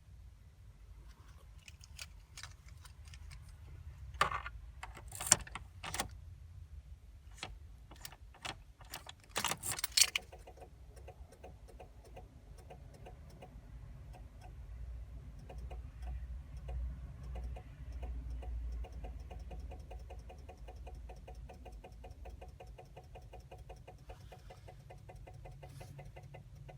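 A 2000 Chevrolet Blazer's starting circuit makes scattered sharp clicks for the first ten seconds, then a rapid, even clicking for about fourteen seconds, with no crank. This is the erratic no-crank clicking of a bad battery ground, here a rusted ground connection.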